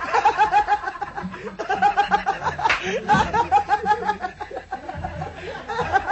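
People laughing in quick repeated bursts, broken by short pauses.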